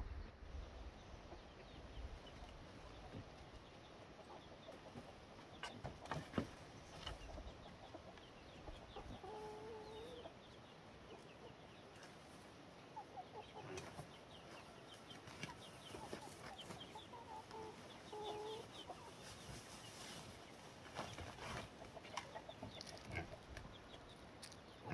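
Faint short pitched animal calls, a few of them about ten and eighteen seconds in, over scattered light clicks and rustling.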